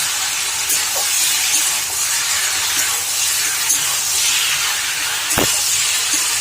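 Fried chicken pieces sizzling in a pan of onions and sauces as they are stir-fried, with a few light spatula scrapes and a sharper knock about five seconds in.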